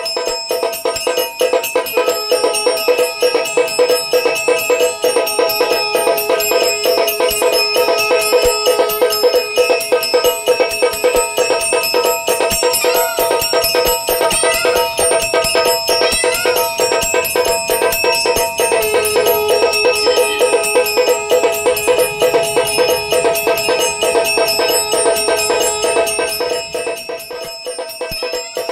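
Automatic aarti machine running: its small brass temple bell is struck rapidly and continuously by a motor-driven striker while a drum is beaten along with it, making a fast, even clanging rhythm. A long held note sounds under it twice.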